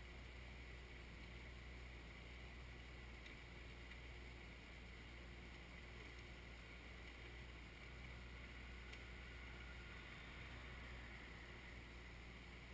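Kioti 3054 compact tractor's diesel engine running steadily, faint and distant.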